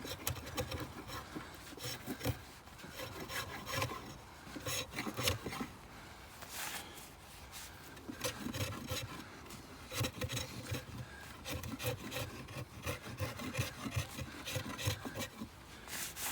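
Knife blade scraping and shaving bark and small knots off a wooden stick, in many short, irregular strokes.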